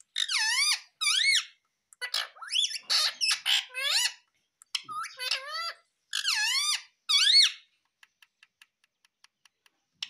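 Indian ringneck parakeet calling and chattering in five bursts of high, swooping-pitch notes. A run of faint, quick ticks follows near the end.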